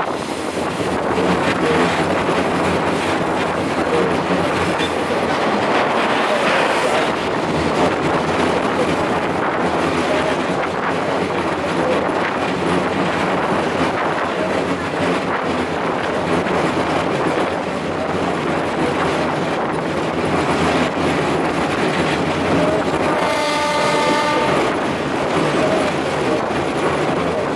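Train running along the track with a steady rumble and clatter of wheels on rails. About 23 seconds in, the train's horn sounds once, for about a second.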